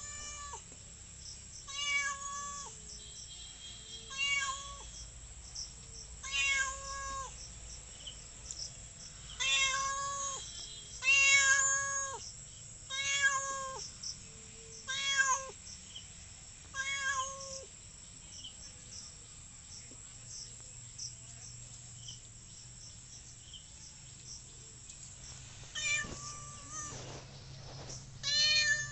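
A domestic cat meowing over and over, short calls about every two seconds. After a pause of several seconds, two more meows come near the end.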